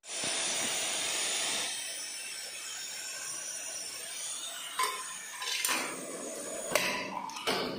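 Desktop automatic bagging machine working: a steady hiss, loudest at first, then several sharp mechanical clacks from its moving parts.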